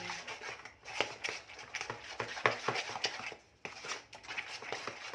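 Wooden spoon (mwiko) stirring a creamed sugar, margarine and egg mixture in a bowl: quick irregular scrapes and knocks against the bowl, with a short pause a little past halfway.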